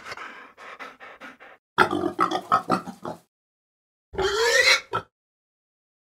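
Domestic pigs grunting and oinking, then one louder squeal rising in pitch about four seconds in.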